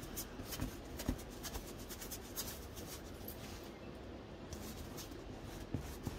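Light scratchy brushing and paper rustling, many short scrapes and ticks, as decoupage glue is brushed on and book pages are pasted onto cardboard packaging.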